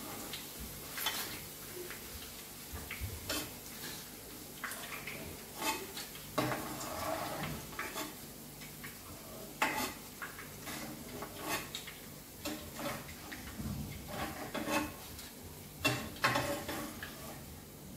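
Metal slotted spoon clinking and scraping against a kadhai and a steel plate as fried boondi is lifted out of hot ghee and tipped onto the plate, in irregular taps, over a faint sizzle of frying ghee.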